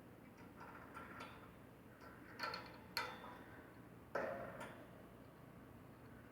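Plastic water-bottle caps tapping and clinking against a bowl as a budgie handles them. There are a few faint taps at first, then three clearer clinks in the middle, each ringing briefly.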